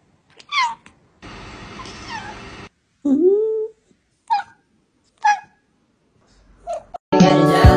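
A string of short cat meows from separate clips, with a longer, lower meow that rises and falls about three seconds in. Music with a thumping beat starts near the end.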